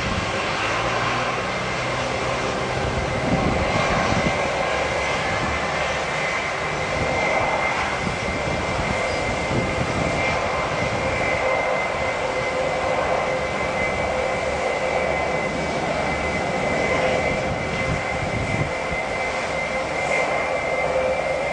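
Airbus A321-200 jet engines running steadily: a continuous rushing noise with a high whine on top.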